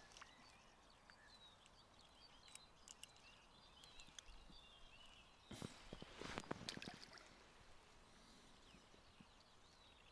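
Near silence of an open riverbank, with small birds chirping faintly and a brief cluster of soft clicks and rustles about six seconds in.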